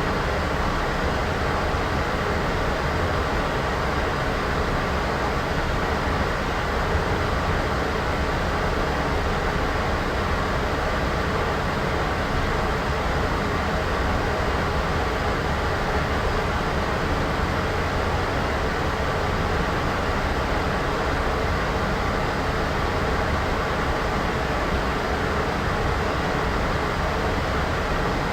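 Steady, unchanging white-noise track, heavier in the low end: a rumbling hiss with no events in it.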